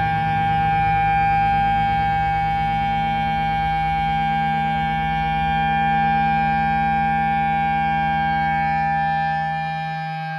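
Live band holding one long sustained chord: a steady drone of layered, unchanging tones with no beat. The lowest notes drop out near the end and the sound starts to fade.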